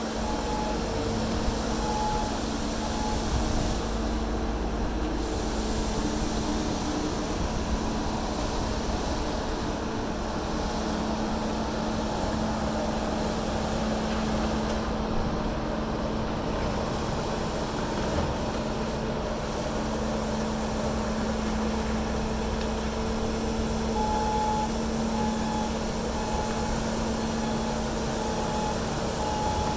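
Heavy road-work machinery running steadily with a diesel engine hum. A reversing alarm beeps about once a second for a few beeps near the start and again in the last several seconds.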